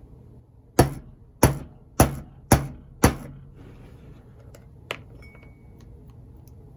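Five sharp metal taps about half a second apart, each with a short ring, as a nut or small metal block set over the drive-wheel axle bearings is struck to seat the Bowser bearings in the chassis frame slots. A faint click follows a little later.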